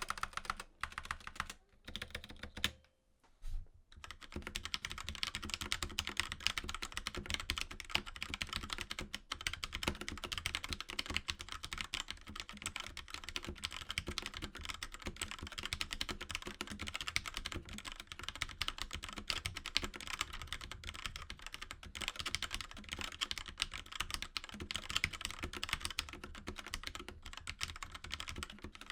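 Rapid, continuous typing on a mechanical keyboard with linear key switches: a dense patter of keystrokes, with a brief pause about three seconds in.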